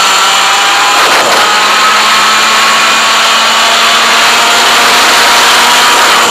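100cc two-stroke kart engine running hard at high revs, a continuous buzzing drone, with a brief break in the note about a second in.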